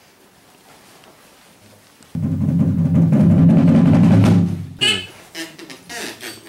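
Loud drum roll on a large, deep drum that starts suddenly about two seconds in and runs for about two and a half seconds, followed by a few brief pitched sounds.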